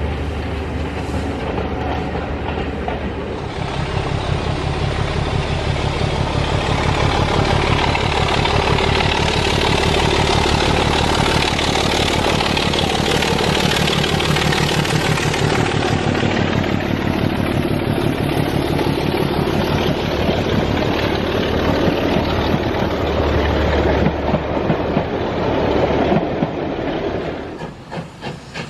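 A train passing close by on the line, its wheels clicking over the rail joints. The sound swells a few seconds in, holds loud, and falls away near the end.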